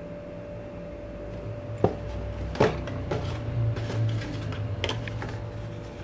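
Cardboard box handled and turned over in the hands, giving a few sharp knocks and scraping rubs between about two and five seconds in, over a steady background hum.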